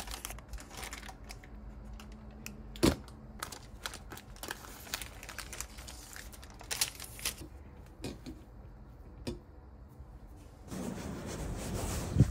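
Kitchen handling sounds as a baked sponge cake is set on a metal wire cooling rack: scattered taps and clinks, the loudest about three seconds in. Near the end they give way to steady wind noise on the microphone outdoors.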